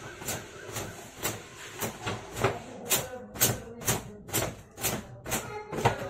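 A towel swishing and slapping against long wet hair as the hair is towel-dried, in a steady rhythm of about two strokes a second that grows louder about halfway through.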